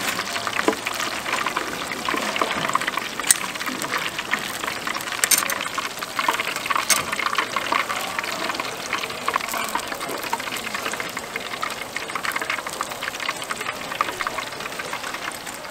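Battered squid fritters deep-frying in a wide pan of hot oil: a steady, dense crackling sizzle. A few sharp metal clicks stand out, about three, five and seven seconds in, as steel tongs move the pieces on the wire draining rack.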